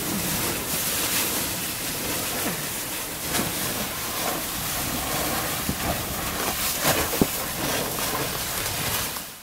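Steady rush of wind and water on a sailboat under way in about 15 knots of wind, with the wind buffeting the camcorder microphone; it fades out near the end.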